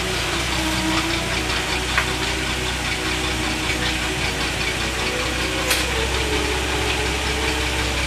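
1962 Ford Fairlane 500's engine idling steadily, with a couple of brief sharp clicks.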